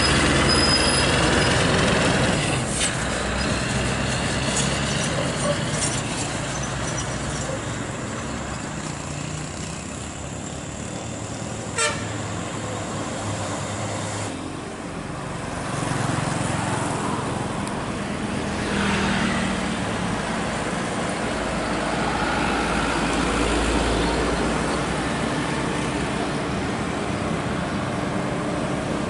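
Heavy diesel trucks passing on a road, their engines running with tyre and traffic noise, and a horn sounding.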